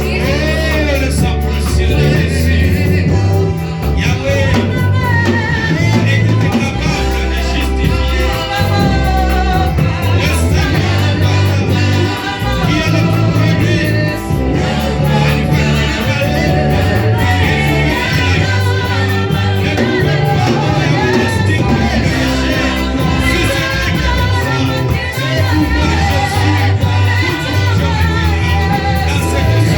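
Church worship music: voices singing over instrumental accompaniment with a loud, heavy bass line.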